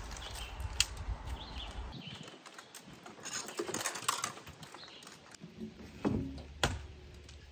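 Fishing rods and tackle being pulled off a bass boat's deck: scattered light clicks, knocks and rattles, with a couple of sharper knocks near the end.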